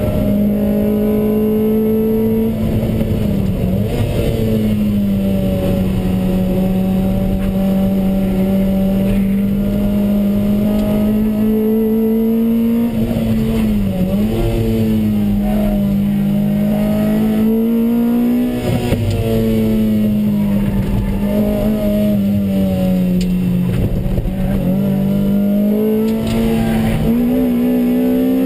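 Lotus Exige's 1.8-litre four-cylinder engine running at high revs on track, heard from inside the cockpit: a steady, loud engine drone that dips briefly in pitch about four times and climbs back.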